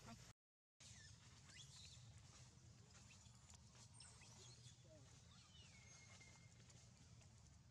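Very faint forest ambience with a steady low hum and a few faint high chirps and whistles, one of them falling in pitch and levelling off midway; the sound cuts out completely for a moment just after the start.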